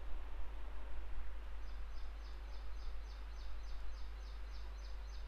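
Room tone through the teacher's microphone: a steady hiss over a low hum, joined after about a second and a half by a rapid, even series of high chirps, about three or four a second.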